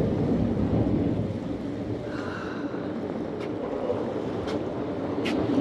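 Ferry running on open water: a steady engine drone with water rushing along the hull and wind buffeting the microphone. Three faint sharp clicks come in the second half.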